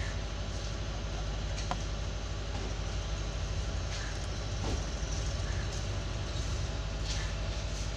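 Hot-air heat gun running steadily, a constant fan hum with a hiss, as it melts plastic filler into the cracked wheel-arch cladding during plastic welding. A few faint ticks sound over it.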